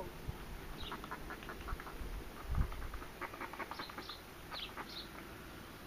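A horse hiccuping: a single low thump about two and a half seconds in. Small birds chirp and twitter around it.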